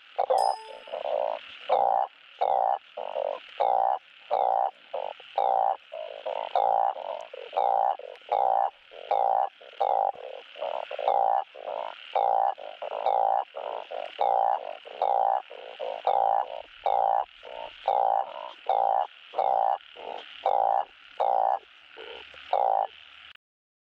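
Male truncate-snouted burrowing frogs (Glyphoglossus molossus) giving their mating calls: a steady run of short, buzzy croaks, about one and a half a second. The calls cut off suddenly just before the end.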